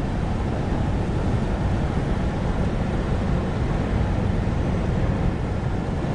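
Steady road and wind noise inside a car driving at highway speed: a low, even rumble of tyres and engine with a hiss of wind over it.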